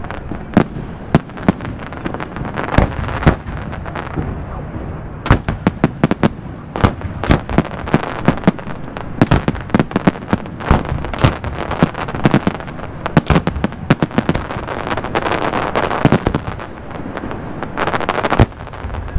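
Fireworks bursting in quick succession: many sharp bangs, sparse for the first few seconds and then coming thick and fast, with a stretch of crackling about three quarters of the way through and a heavy bang near the end.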